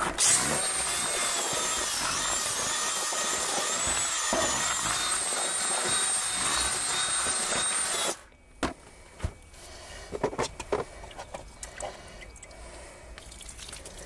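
Electric drill running steadily as it mixes freshly wetted groundbait, with a high wavering whine, for about eight seconds before cutting off suddenly. Quieter scattered knocks and scrapes follow.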